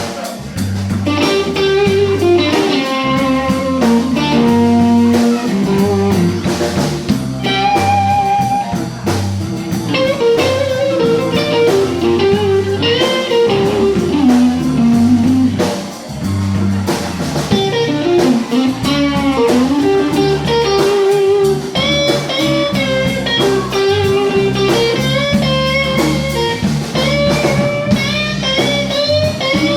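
Blues band playing an instrumental break in a slow blues: an electric guitar lead with bent, sliding notes over a walking bass line and drums.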